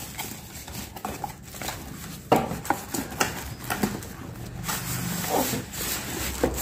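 Cardboard box and thermocol (polystyrene foam) packing rubbing and scraping as a foam-packed kitchen scale is worked out of its box, with scattered knocks and one sharper knock about two seconds in.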